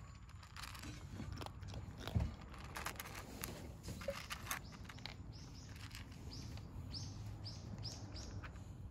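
Cats crunching dry food in short clicks, with a small bird chirping repeatedly, about three short chirps a second, through the second half.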